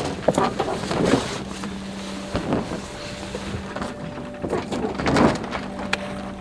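Water sloshing and splashing against the hull of a slowly moving sailing yacht in several irregular surges, over a steady low hum.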